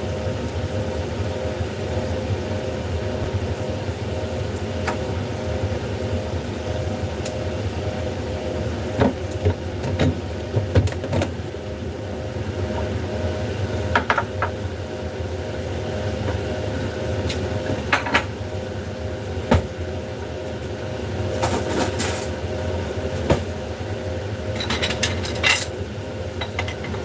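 Steady hum of a kitchen range hood's exhaust fans over a lit gas burner, with scattered sharp clinks and knocks of a pan and utensils and a quick run of them near the end.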